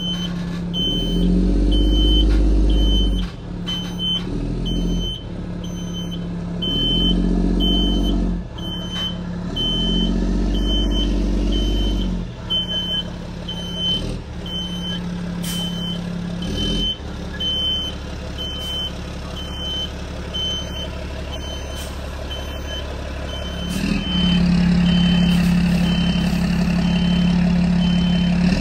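Heavy boom truck's engine running and revving up in several spurts while it manoeuvres, with its backup alarm beeping about twice a second as it reverses.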